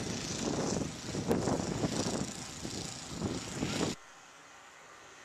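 Snowblower engine running under load, a loud uneven rushing drone. It stops abruptly about four seconds in, leaving a faint steady hiss.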